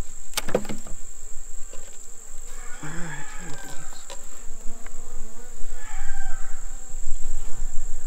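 Honeybees buzzing around an open hive box, over a steady high-pitched insect drone, with a sharp knock of wooden hive frames near the start and another about four seconds in.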